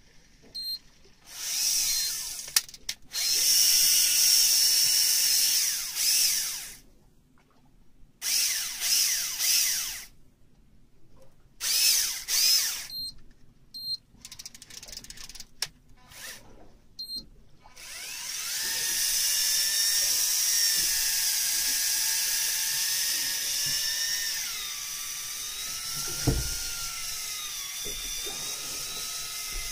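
Electric fishing reel's motor winding in line: a whine in several stop-start bursts of one to three seconds, then running steadily from a little past halfway, wavering and dropping slightly in pitch. A single low thump near the end.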